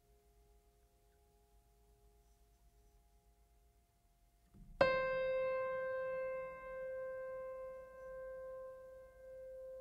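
Soft background music: faint held tones, then a single struck note about halfway through that rings on and slowly fades.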